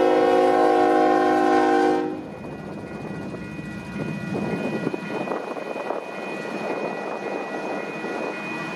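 A Union Pacific diesel freight locomotive's air horn sounds a loud chord that cuts off sharply about two seconds in. After it comes the rumble and clatter of covered hopper cars rolling past, with a faint, thin high ringing above.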